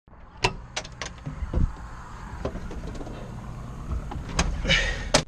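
Sharp clicks and knocks in and around a Caterpillar 259D compact track loader's cab, about six in all, over a low steady rumble, with a brief rattle near the end.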